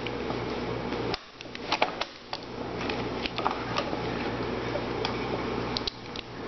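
Scattered light clicks and knocks of cables and connectors being handled and plugged in among plastic cable conduit, over a steady background hum.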